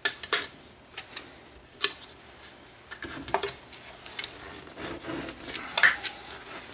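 Brittle old plastic bucket cracking and snapping in a series of sharp snaps as it is broken off hardened concrete, with scraping and rubbing against the concrete between the snaps; the loudest snap comes near the end.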